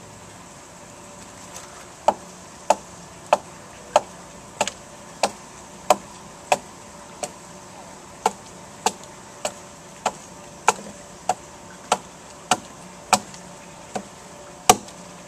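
A hatchet chopping into a log being hollowed out into a dugout canoe hull: about twenty sharp, even strikes, a little under two a second, starting about two seconds in, with the loudest blow near the end.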